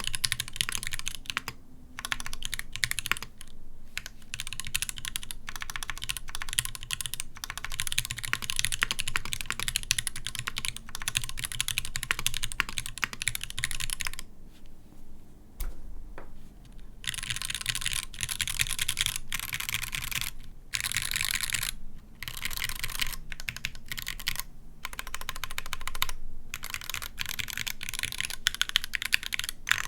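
Typing on an Iron180 custom mechanical keyboard with a fully brass plate, gasket mount, Gateron Box Ink Black linear switches and GMK keycaps: fast, continuous keystrokes. About halfway through there is a break of roughly three seconds in which only a few single keys sound.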